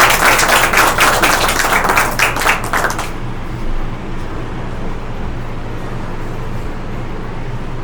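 Audience applauding, a dense patter of many hands that stops about three seconds in. A steady low hum of room noise is left behind.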